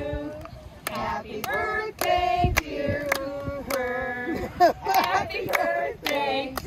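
A group of adults and children singing a song together, with hand claps keeping time about twice a second.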